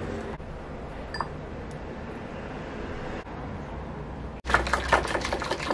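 A metal spoon and coil whisk clink lightly against a ceramic bowl while egg yolk, labneh and yogurt are mixed, over a low steady hum. Near the end a much louder run of rapid clicks and scrapes begins.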